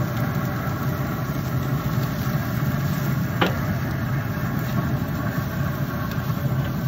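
Steaks sizzling on a grill over glowing coals, under a steady low mechanical hum, with one sharp pop about three and a half seconds in.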